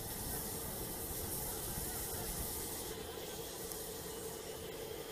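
A parked private jet's engines running with a steady hiss and a low rumble.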